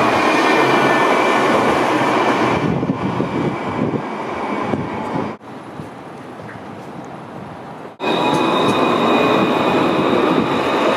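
Luas light-rail trams (Alstom Citadis) running along street track close by, a dense rumble with a steady high whine over it. The sound cuts off abruptly about halfway through to a quieter, more distant tram approaching, then cuts back about two-thirds through to a loud tram again with a higher steady whine.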